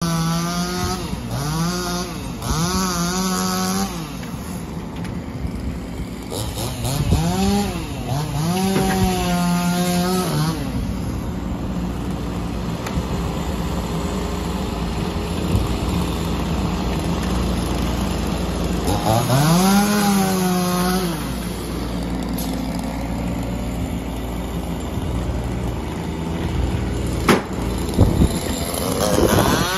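Bobcat E10 mini excavator engine running steadily as it works a selector grab, with a chainsaw revving up, cutting and dropping back to idle in three short bursts. Near the end come two sharp knocks as the grab bumps into the metal trailer while loading cuttings.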